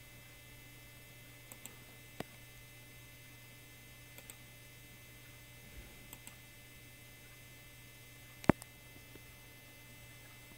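Scattered clicks of a computer mouse over a steady low electrical hum, with one sharper, louder click late on.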